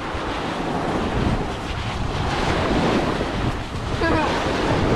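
Small waves washing up on a sandy beach, mixed with wind buffeting the microphone.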